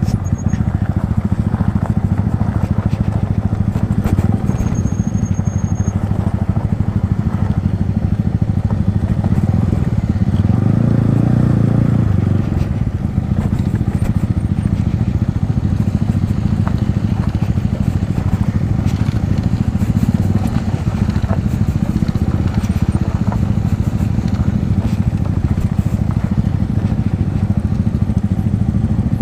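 Yamaha MT-15's single-cylinder engine running through an Akrapovic aftermarket exhaust while being ridden, a steady low drone that swells briefly about ten seconds in.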